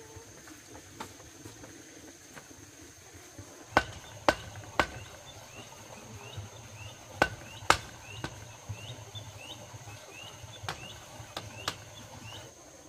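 Steady high insect drone with a series of sharp knocks, three about four seconds in and two more a few seconds later, then a few softer ones. Faint short rising chirps repeat through the middle.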